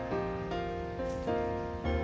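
Background music: sustained pitched notes and chords that change about every half second.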